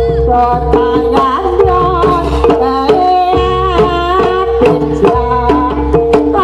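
Javanese jaranan gamelan music: kendang hand drums beating steadily under held gong-chime tones and a wavering melodic line.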